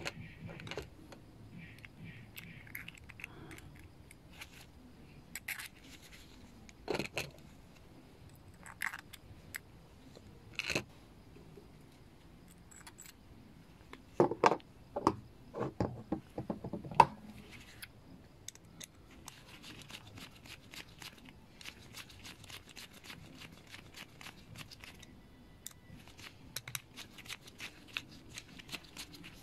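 Small screws and tools handled against an aluminium carburetor body: scattered light metallic clicks and taps as the screws of the primer bulb retaining plate are set in place, with a louder run of clicks about halfway through. In the last third, a screwdriver turns the screws in, with fine rapid ticking.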